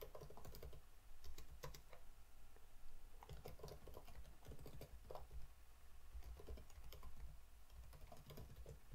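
Typing on a computer keyboard: quick, irregular keystrokes, fairly faint, over a low steady hum.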